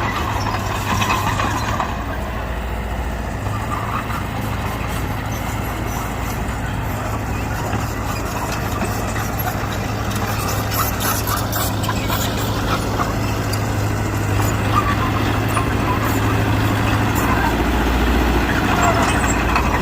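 Bulldozer diesel engine running steadily as the machine works, with a light clatter about halfway through.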